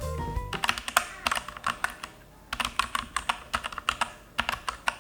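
Typing on a Vortex Series VX5 60% mechanical keyboard with Outemu switches, held close to the microphone: rapid keystroke clacks, with a brief pause about two seconds in.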